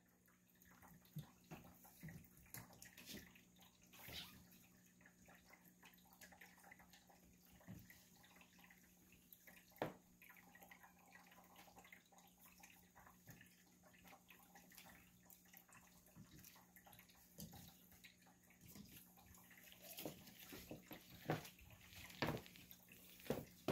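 Near silence: room tone with a faint steady hum and scattered soft taps and rustles.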